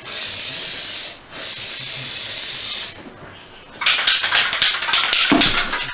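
Aerosol spray paint can hissing in two long bursts with a short break between them, putting a coat of hammered silver paint on a metal vent hood. Near the end comes a louder, choppy stretch of noise.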